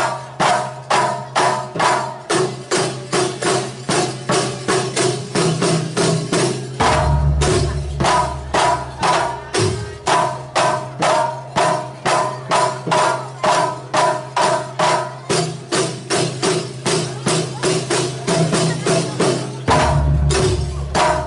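Javanese folk percussion ensemble of frame drums and barrel drums playing a steady driving beat of about three strokes a second, with sustained ringing tones over it. A deep low boom joins in about seven seconds in and again near the end.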